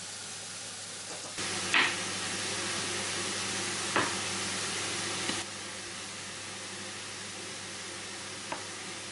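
Sliced mushrooms sizzling as they fry in a frying pan and are stirred, with a few sharp clicks. The sizzle gets louder about a second and a half in and drops back to a softer hiss after about five seconds. A couple of short knocks come near the end.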